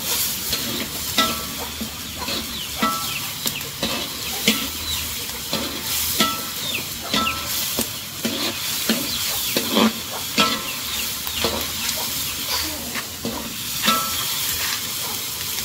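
A metal spatula scraping and stirring around a wok, about once a second, some strokes giving a short metallic ring, over a steady sizzle of frying.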